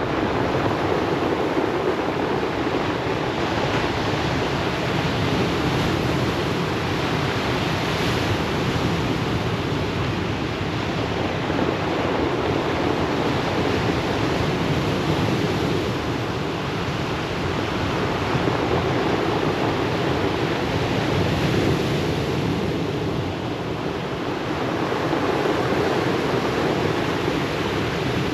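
Ocean surf breaking on a beach: a continuous wash of waves that swells and eases every several seconds.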